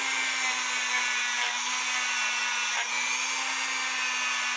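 Rotary tool running steadily with a wire brush against a cuckoo clock movement: an even motor hum with a hiss from the bristles on the metal, faltering briefly near the middle.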